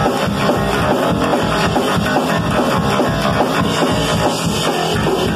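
Live rock band playing loud: electric guitar over a drum kit, with a fast, steady beat.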